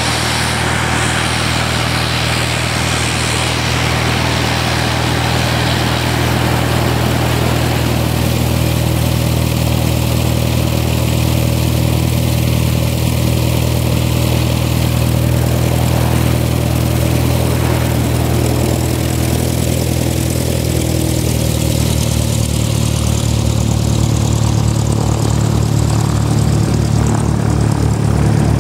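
Fairchild Metroliner's twin Garrett TPE331 turboprop engines running at taxi power: a loud, steady low propeller drone. A hissing whine above it fades after the first few seconds as the aircraft moves away. Near the end the low drone takes on a fast pulsing beat.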